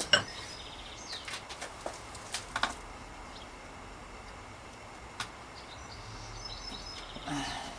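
Scattered clicks and knocks from taking a bicycle's front wheel out, the loudest right at the start and a cluster over the first few seconds. Birds chirp faintly in the background.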